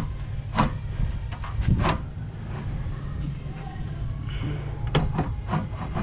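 Scattered knocks and clicks of car parts being handled while a radiator and front-end parts are worked loose, over a steady low rumble.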